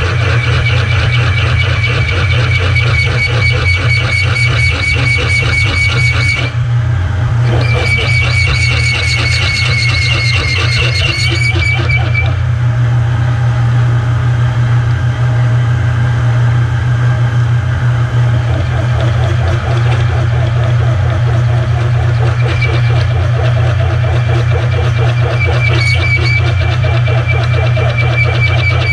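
Milling machine spindle turning a 15/16-inch Silver & Deming drill at about 210 rpm, cutting a hole in metal held in the vise: a steady motor hum under a high squealing chatter from the drill's cutting edges. The squeal drops out for about a second around six seconds in, fades away near twelve seconds, and comes back around twenty-two seconds.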